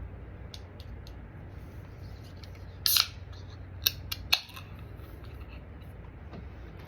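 A single hiccup: one short, sharp burst about three seconds in, followed by three quick clicks about a second later. A steady low hum runs underneath.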